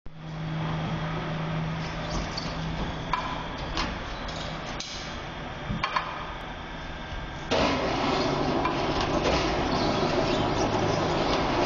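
Tire bead separator machinery running with a steady low hum, with several sharp metallic knocks as a truck tire is handled onto the machine. About two-thirds of the way through, a louder, rough, grinding mechanical noise sets in and continues.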